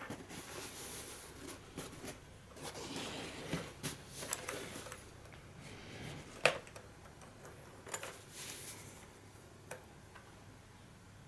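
Handling noises while a chinstrap is fitted to the side rosette of a WWI M1915 pickelhaube: rustling with small metal clicks, and one sharp click a little past the middle.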